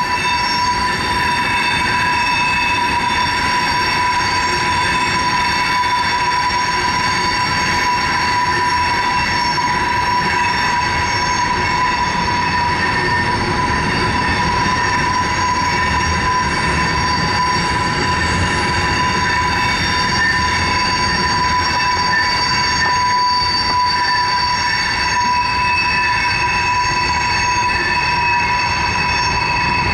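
Freight train's tank cars and covered hoppers rolling past on a sharp curve. The wheels rumble under a steady, high-pitched squeal of wheel flanges grinding against the curved rail.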